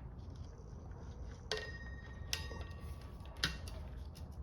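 Three light metallic clinks, each ringing briefly, from steel clutch parts being handled and set together.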